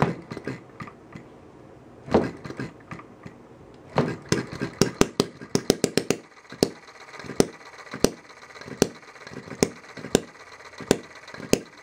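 Quarter-scale single-cylinder hit-and-miss model engine (1-inch bore and stroke) being spun over by hand on its flywheel. It catches about four seconds in with a quick run of firing strokes, then settles into unloaded hit-and-miss running: a sharp pop about every 0.7 seconds as it fires and coasts on its flywheels, with a light mechanical clatter in between.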